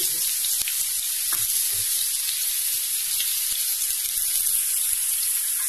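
Chopped onions and whole baby onions frying in about a spoonful of hot oil in a non-stick pan: a steady sizzle, mostly high hiss, with a few faint ticks.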